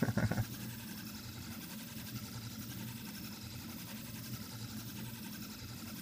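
Reach 3D printer printing at about 275 mm/s: its stepper motors whir as they sweep the print head around a cylinder, a steady hum made of several held tones.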